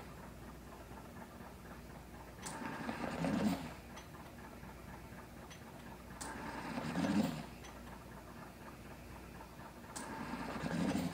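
Mechanical ventilator pushing breaths through a breathing circuit, three in a row about every four seconds. Each breath opens with a click and swells into a whoosh with a low hum at its peak, lasting about a second.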